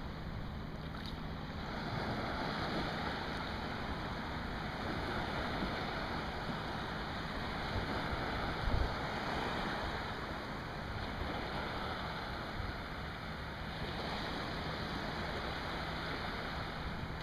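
Small surf waves washing in a steady hiss of moving water that swells slightly after the first couple of seconds, with one brief low thump about nine seconds in.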